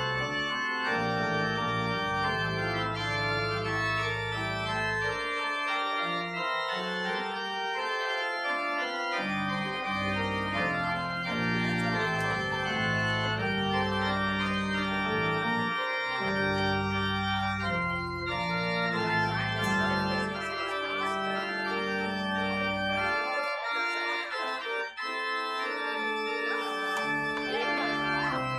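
Church organ playing held chords over a bass line that steps from note to note, the bass falling silent for a few seconds at times.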